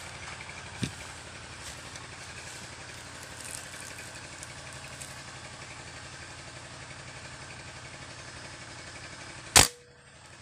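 A single sharp rifle shot near the end, at a small bird, which is hit. Before it there is only a faint steady low hum.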